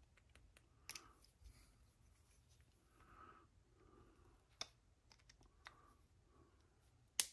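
Small plastic and metal RC car parts being handled and worked with a hand screwdriver: a few scattered sharp clicks and taps, the loudest just before the end.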